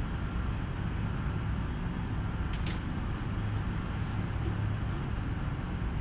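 Steady low background hum, with a single brief click about two and a half seconds in as a control on the oscilloscope's front panel is set.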